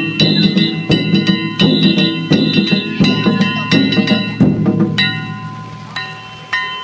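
Danjiri festival ohayashi: taiko drums and ringing hand gongs (kane) struck in a steady, driving rhythm, with a strong beat about every two-thirds of a second. The playing fades away over the last couple of seconds.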